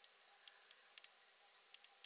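Near silence with a faint hiss and a handful of short, sharp ticks at irregular intervals.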